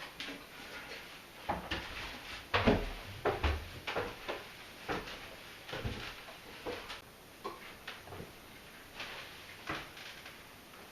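Irregular knocks and clunks, one or two at a time, with short pauses between them. The loudest knocks come about two and a half seconds in.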